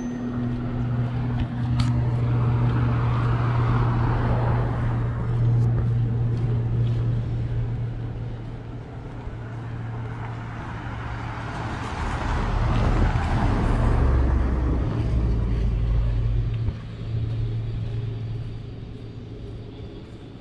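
Street traffic: two cars pass close by, one about three seconds in and another around twelve to fifteen seconds in, their noise swelling and fading over a steady low engine hum.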